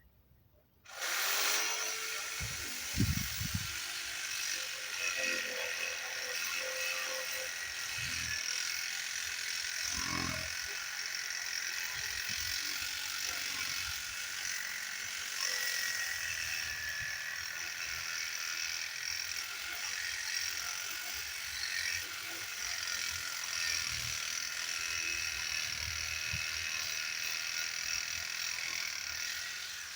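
A handheld electric power tool starts about a second in and runs steadily, a high, hissing machine noise, until just before the end, with a few low knocks early on.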